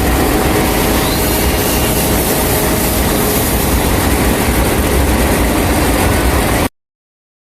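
Diesel generator running steadily in a ship's engine room: a loud, even machinery noise with a deep rumble. It cuts off suddenly near the end.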